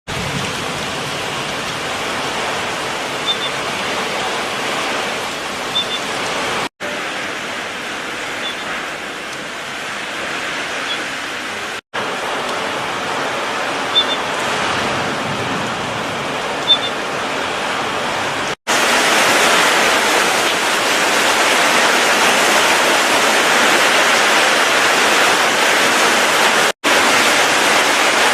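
Heavy rain pouring down in a steady hiss, cut into several stretches by brief silent breaks and louder in the last stretch, with a few faint ticks.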